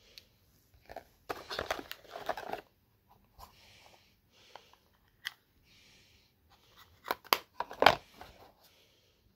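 Hands handling cardboard and paper packaging: a burst of rustling and crinkling about a second in, then a few sharp taps and knocks against the box near the end.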